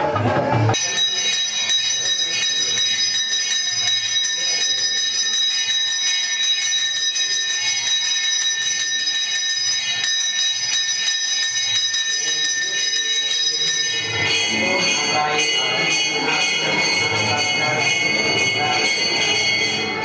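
Temple bells rung rapidly and without a break, a dense, high, steady ringing. About 14 s in the sound grows fuller as lower sounds join the ringing.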